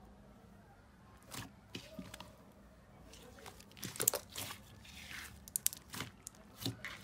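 Clear blue glitter slime being pressed, folded and squeezed by hand. It makes irregular sticky clicks and small pops, the loudest about four seconds in.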